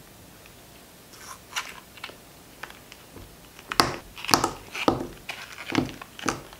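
Silicone heart mould being flexed and set strawberry white chocolate hearts popping out and dropping onto a cutting mat: a few soft rustles and taps, then a run of sharp clacks and knocks from about four seconds in.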